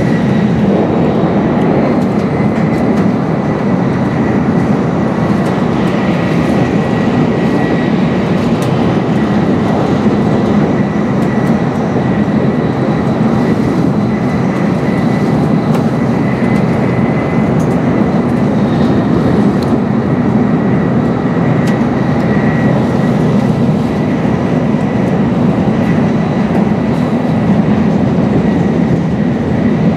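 Steady running noise of a Nozomi Shinkansen bullet train at speed, heard inside the passenger cabin: a dense, even rumble with a faint steady high whine over it.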